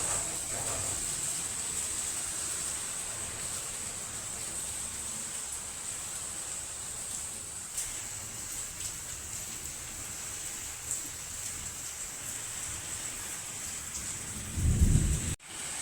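Heavy rain falling with a steady hiss and a few sharper drop ticks. Near the end comes a loud low rumble lasting under a second, then the sound cuts off abruptly for an instant.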